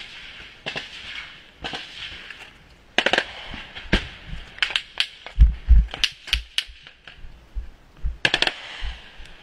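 Irregular small-arms fire in a trench fight: single shots and quick strings of two or three rounds, some cracks sharp and close. Heavy low thuds about halfway through are the loudest sounds.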